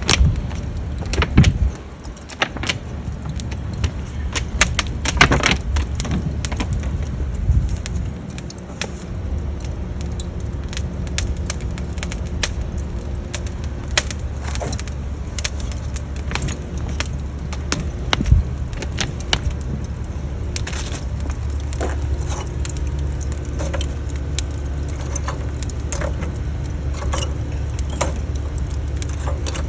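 Charcoal and wood fire in a grill crackling, with many irregular sharp pops and snaps over a steady low rumble.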